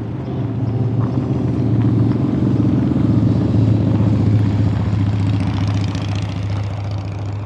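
A motor vehicle's engine running with a steady low hum, growing louder to a peak a few seconds in, then slowly fading.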